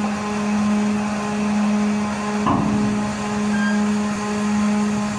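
A ship's engine machinery running with a steady low hum that swells and eases about once a second, with a single clank about halfway through.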